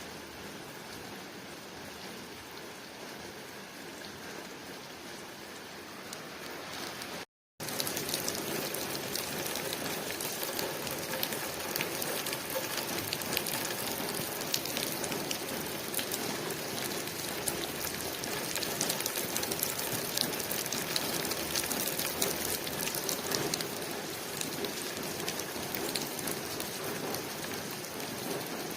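Steady rain falling on a window, with many individual drops ticking against the glass. About seven seconds in it cuts out for a split second, then comes back louder and denser.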